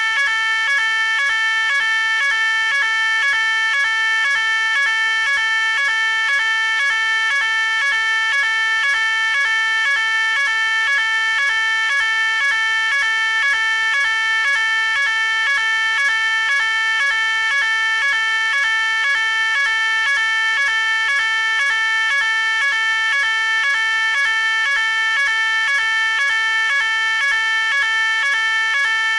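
Fire alarm sounding continuously: a loud electronic tone pulsing rapidly and evenly, several pulses a second, without change.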